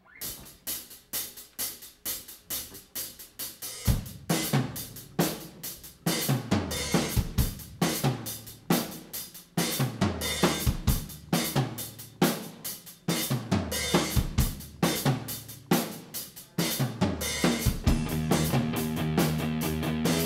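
Rock band playing live: drums alone for about the first four seconds, then bass and electric guitars come in with repeated hits in time with the drums. Near the end the guitars and bass hold a sustained chord.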